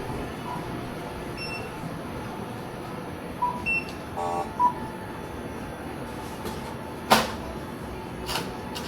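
Short electronic beeps from the checkout counter's register or card terminal, several in a cluster over about a second and a half, over a steady store hum. A single sharp knock about seven seconds in, the loudest sound.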